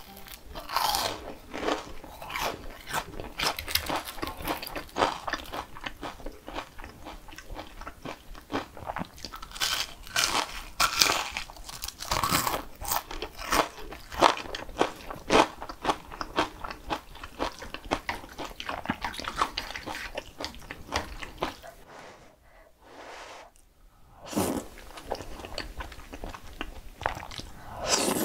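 Close-miked eating: a person biting into crunchy food and chewing it, in a run of irregular crisp bites with a short lull about three quarters of the way through.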